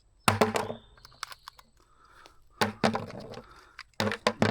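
Sharp plastic clicks and knocks from handling a trail camera as its batteries are swapped, in several separate bursts.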